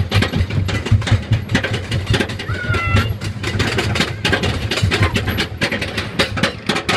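Jack Rabbit wooden roller coaster train rattling along its track, a rapid run of clacks over a steady low rumble, heard from a seat in the train.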